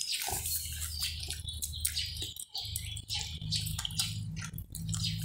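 A young pig eating dry feed from a bowl: a quick, irregular run of small wet smacking and crunching clicks as it chews and noses through the food. A low steady hum sits underneath.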